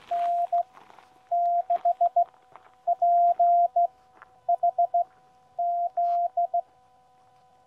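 Morse code (CW) from a QCX Mini ham transceiver: a single steady tone keyed in dits and dahs, spelling N6PHZ, the end of the callsign KN6PHZ sent by a station answering the summit activation. The keying stops about two-thirds of the way through, leaving only a faint steady hum.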